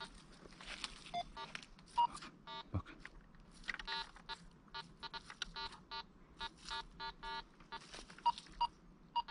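Metal detector giving many short beeps of one steady pitch as its search coil is swept over the ground, some coming in quick runs, over a faint rustle of dry leaves.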